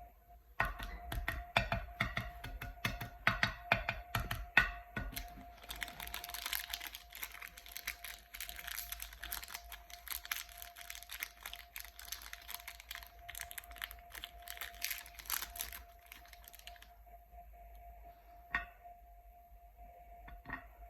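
Plastic chocolate-bar wrappers being crinkled and torn open: sharp crackles for the first few seconds, then a dense crinkling rustle until about sixteen seconds in, then only a couple of faint clicks.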